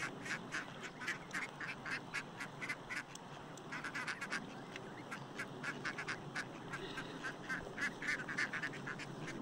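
A flock of waterfowl calling continually: a rapid run of short honking and quacking calls, about three or four a second, with no let-up.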